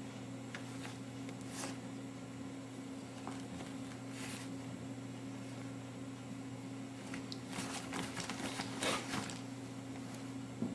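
A steady low electrical hum with a few brief, soft rustles, and a busier patch of rustling about eight to nine seconds in.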